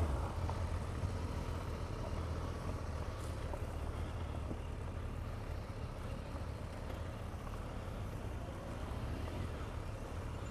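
Motorcycle engine running at low speed as the bike rolls along, a steady low rumble.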